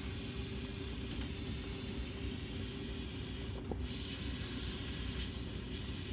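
Glassblowing torch burning with a steady hiss over a low rumble.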